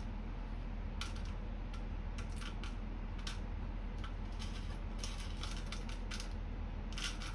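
Light, irregular clicks and taps of small tools being handled on a workbench, over a steady low electrical hum.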